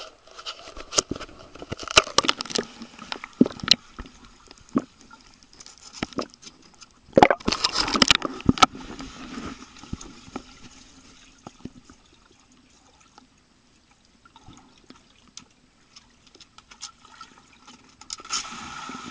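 Swimming-pool water splashing and sloshing against a camera in an underwater case. Sharp clicks and knocks come in the first few seconds, and a loud burst of splashing about seven seconds in. After that the sound turns quieter and muffled underwater, then rises again near the end.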